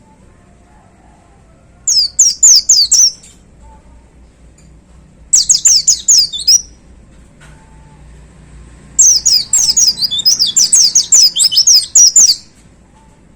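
A pleci (white-eye) singing in three fast bursts of high, sharply falling chirps, the last and longest lasting about three seconds near the end. This is the loud rapid-fire 'tembakan' song that bird keepers prize in a gacor pleci.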